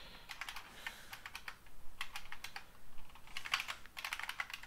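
Typing on a computer keyboard: quick runs of keystroke clicks in about three bursts, with short pauses between them.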